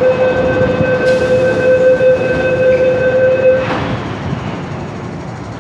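Electronic door-closing warning buzzer at an MTR station, one steady tone held for nearly four seconds and then stopping, over the rumble of the M-Train standing at the platform.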